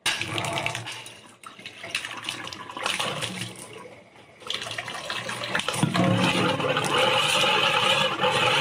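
Water from a kitchen tap running into a stainless steel sink around a small bowl; the rush of water grows louder about four and a half seconds in and stays full.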